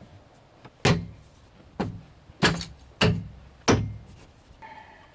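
Five sharp knocks, a little under a second apart, each with a short low ring after it.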